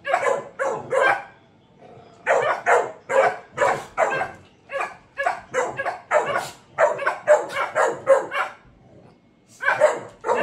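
Dogs barking in quick, sharp barks, about two to three a second. A short bout is followed by a pause of about a second, then a long run of barks, a brief lull near the end, and barking again.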